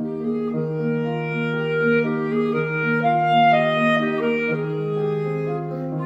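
Clarinet playing a classical melody of short, changing notes over a piano accompaniment of long low notes that change about every two seconds.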